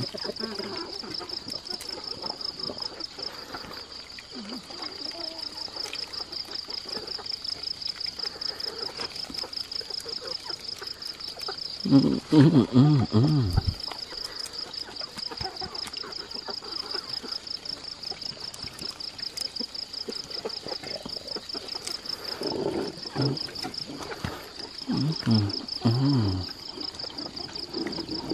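An insect chirping in a fast, even, high-pitched trill that runs on steadily, with brief bursts of voices about twelve seconds in and again near the end.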